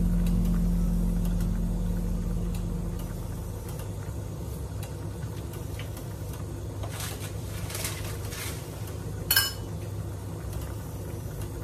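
Background music fades out over the first few seconds, leaving a steady low hum in the kitchen around the pan of soup on the cooktop. A few faint clicks follow, then a single sharp clink of kitchenware about nine seconds in.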